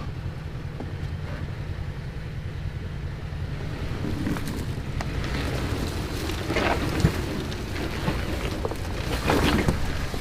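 SUV engine running at low speed while the vehicle backs up on a rocky trail, a steady low rumble with scattered crackles from the tyres on rock. Two louder, rougher swells come about two-thirds in and near the end.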